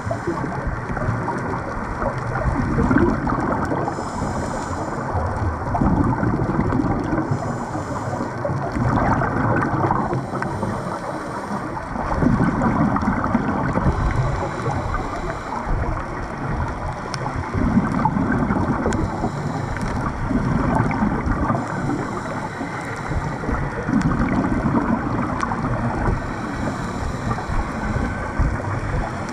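A scuba diver breathing underwater. A hiss from the regulator on each inhale alternates with a low rumbling burst of exhaled bubbles, one breath every few seconds.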